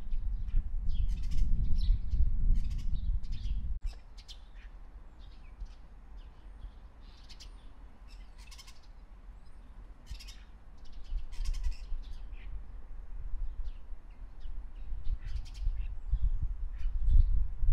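Birds chirping and calling, many short high notes throughout. A low rumble of wind on the microphone is the loudest sound for the first four seconds, cuts off suddenly, and returns near the end.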